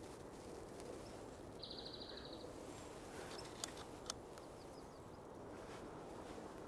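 A small bird gives one short, rapid, high trill of about a second, over a steady outdoor background. Two sharp clicks come a couple of seconds later.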